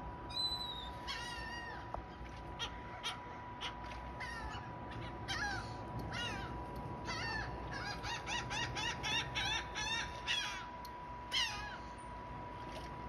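Gulls calling again and again, with harsh cries that fall in pitch. In the middle the cries quicken into a rapid run of about four calls a second, and a single loud cry comes near the end.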